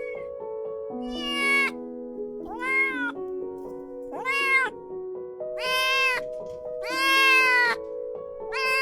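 A kitten meowing repeatedly: five drawn-out meows, each rising then falling in pitch, and a sixth beginning near the end, over gentle background music.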